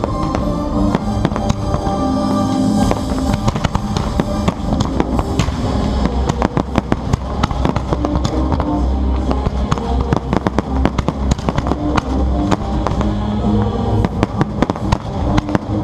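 Fireworks display going off over music: dense rapid crackling and popping of shells on top of loud music, the crackles thickest in the middle and later part.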